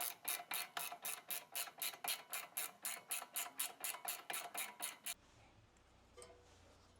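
Flex-head ratcheting wrench clicking steadily as it is worked, about four clicks a second, stopping suddenly about five seconds in.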